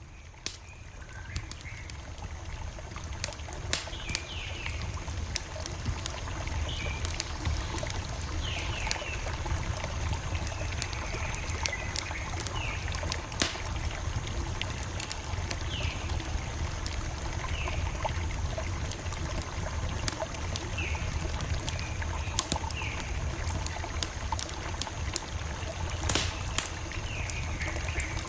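Campfire crackling, sharp irregular pops and snaps over the low rumble of the burning fire, fading up over the first couple of seconds. Short downward chirping calls recur every second or two in the background.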